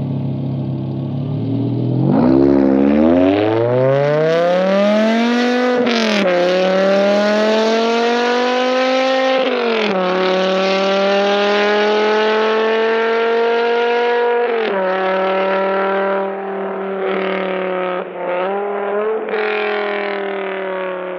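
BMW E60 M5's V10 engine with an aftermarket exhaust, accelerating hard through the gears: the pitch climbs steadily in each gear and drops sharply at each upshift, about six, ten and fourteen and a half seconds in. Afterwards it holds high revs with a few quick throttle lifts and eases off near the end.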